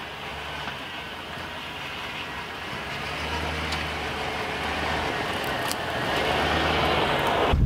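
Full-size pickup truck driving slowly over a snowy dirt track, coming closer so that its low engine hum and tyre noise grow steadily louder.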